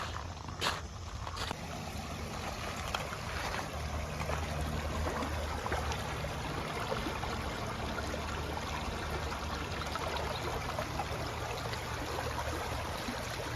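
Creek water running and trickling steadily, with a couple of light clicks in the first second and a half.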